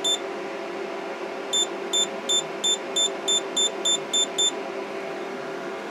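Anycubic Photon resin printer's touchscreen beeping at each button press: one short high beep, then about ten quick beeps in a row, about three a second, as the Z axis is jogged down in small steps. A steady low hum runs underneath.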